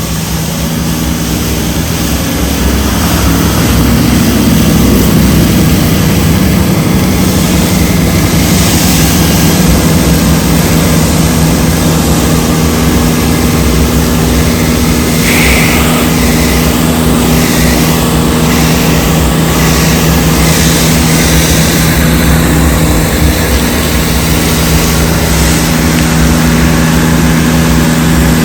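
Pressure-washing rig's engine running steadily under load, growing louder over the first few seconds, with the hiss of the rinse spray coming and going.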